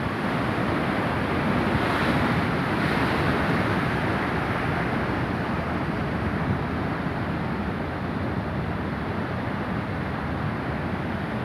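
Rough Atlantic surf: heavy waves breaking continuously against the shore in a storm swell, with wind on the microphone. The surf swells louder about two seconds in.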